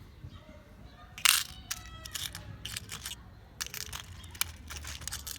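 Small metal washers being rummaged through by hand, a run of clinks and rattles with a loud clack a little over a second in and one briefly ringing just after.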